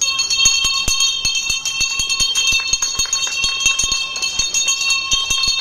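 Music with jingling bells ringing steadily over a quick, even run of percussion strikes, starting suddenly.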